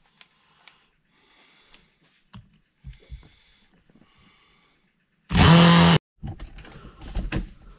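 Cordless drill driving screws into wood in short spurts, its small motor whining faintly, starting and stopping three times. About five seconds in comes one loud burst of noise with a low hum, lasting under a second, followed by light knocks.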